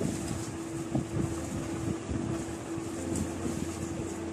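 A steady mechanical hum with one held tone and a low rumble underneath, and a faint knock about a second in.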